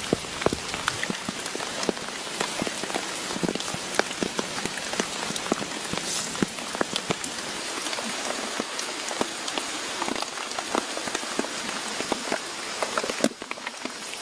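Heavy rain falling steadily, with many close drops landing as sharp taps on a surface. The rain drops off for a moment near the end.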